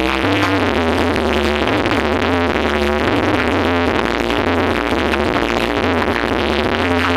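Loud electronic dance music with a heavy, shifting bass line, played through a large parade sound system.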